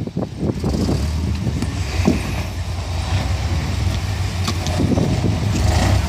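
Lifted pickup truck's engine running steadily at low revs as it crawls over boulders, with a few sharp knocks about two and four and a half seconds in.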